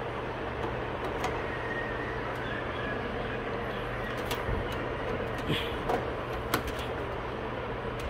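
A few sharp clicks and taps of a RAM module being handled and pressed into a desktop motherboard's memory slot, over a steady low hum.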